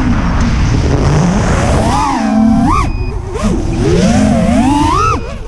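FPV quadcopter's brushless motors and HQProp Ethix P3.5 propellers whining, the pitch sweeping up and down again and again as the throttle changes, over rough wind noise on the onboard camera.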